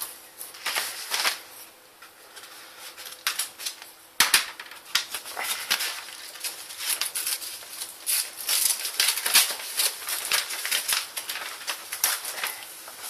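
Taped paper envelope being cut open with a craft knife and pulled apart: crisp crackling and rustling of paper and tape, with a sharp knock about four seconds in.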